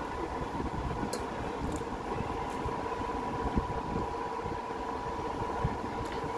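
Steady hum of an electric fan running, with an even tone in it and a few faint short clicks of eating.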